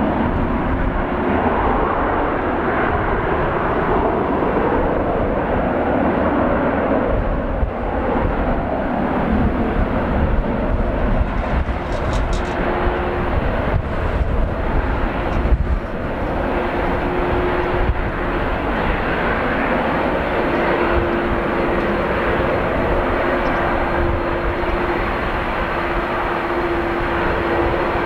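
Airbus A321-211 jet engines (CFM56-5B) running at takeoff power through the takeoff roll up to liftoff: a steady, loud jet noise with a low rumble and a steady hum that comes in partway through. Gusting wind rumbles on the microphone.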